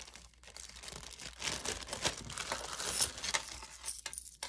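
Small clear zip-top plastic bag crinkling as it is handled and pulled open and a chain necklace is drawn out of it: an irregular run of crackles with a short lull near the end.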